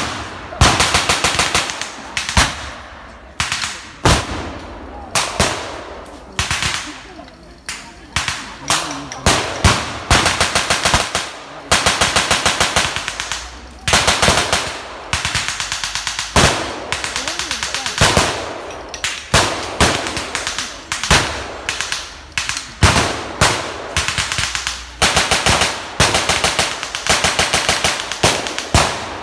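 Blank-firing weapons in a mock battle: bursts of rapid automatic machine-gun fire mixed with single rifle shots, going on almost without pause.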